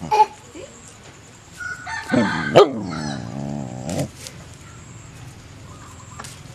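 A rooster crowing once, a single long call lasting about two seconds that starts about two seconds in, preceded by a brief sharp call right at the start.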